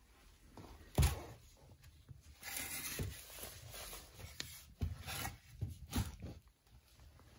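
A pine skirting board being handled and fitted against a cabinet plinth: a sharp knock about a second in, then rubbing and scraping with a few lighter knocks as the board is pressed into place.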